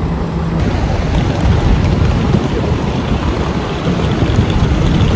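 Hard-shell suitcase wheels rolling over rough asphalt: a continuous low grinding rumble that swells slightly near the end.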